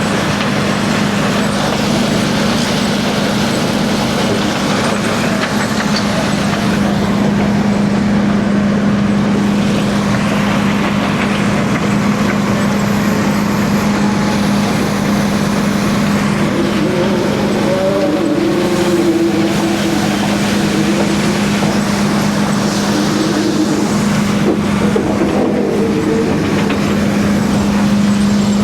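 Dump truck's diesel engine running steadily with a constant low hum.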